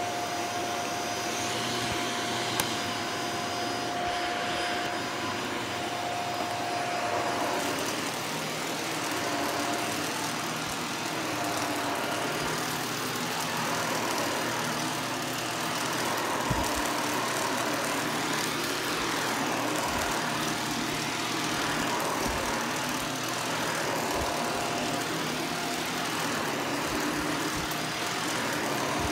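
Shark vacuum cleaner running steadily on carpet. A whining tone holds for about seven seconds, then comes and goes as the vacuum is worked, with a few soft low thumps in the second half.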